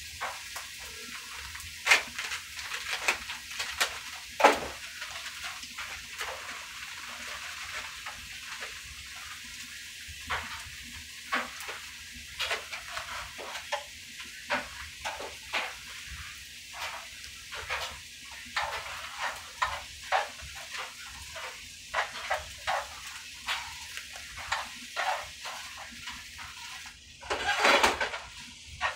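Peppers, onions and sliced mushrooms sizzling in a frying pan with a steady hiss, while a utensil stirs them with irregular clicks and scrapes against the pan. There is a louder clatter near the end.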